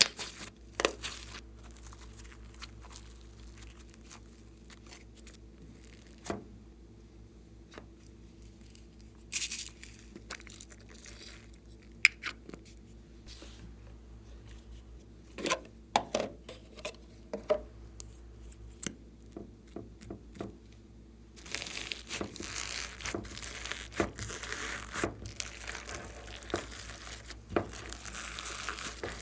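Slime being kneaded and squeezed by hand: scattered sticky clicks and pops at first, then, about two-thirds of the way in, a dense, continuous crackling.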